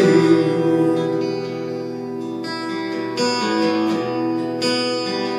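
Acoustic guitar strummed with no singing: chords held and left ringing, with a few fresh strums about halfway through and near the end.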